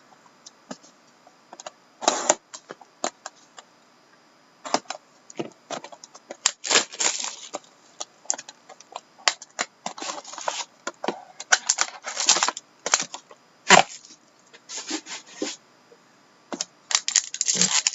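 Plastic wrap crackling and cardboard clicking in irregular bursts as a sealed hockey trading-card box is unwrapped and opened, with one sharp crack louder than the rest a little before the end.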